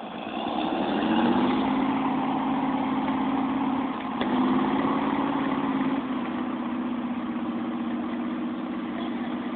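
A vehicle engine picks up revs about a second in, then runs steadily, with a brief dip about four seconds in.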